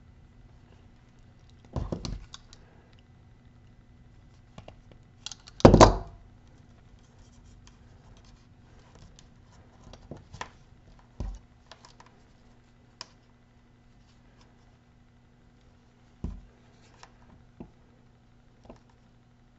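Small handling noises of thin wires and little plastic insulation-displacement connectors being worked by hand: scattered scratches and clicks, with a louder scrape about six seconds in, over a faint steady hum.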